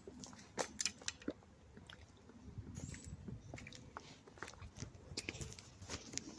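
Footsteps crunching through twigs and leaf litter in undergrowth: irregular snapping and crackling clicks.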